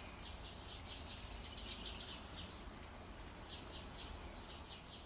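Faint outdoor evening ambience: high, rapid chirping repeating in short runs, over a low steady rumble.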